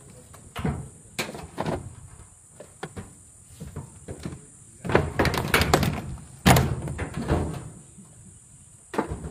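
An elephant bull battering and lifting a car with its tusks: a series of loud sheet-metal bangs and crunches, scattered at first, then coming thick and fast about halfway through, with the loudest bang just after.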